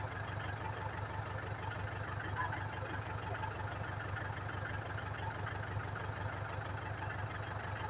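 An engine running steadily with a low, even note.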